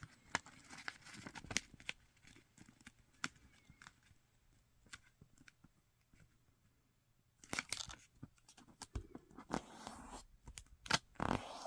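A sheet of origami paper being folded in half and creased, with scattered faint crackles and crisp creasing strokes. It goes almost quiet for a few seconds, then a denser run of paper rustling and creasing starts a little past halfway.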